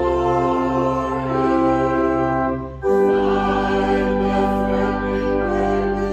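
Slow organ music playing long sustained chords, with a brief break just before the halfway point and then a new chord.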